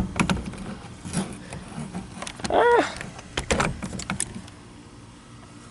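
Sharp clicks and knocks from parts being handled and fitted around a steering column, with a short squeak about two and a half seconds in.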